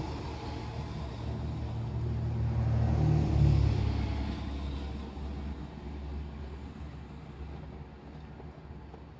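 A passing vehicle's low rumble, swelling to its loudest about three seconds in, then slowly fading away.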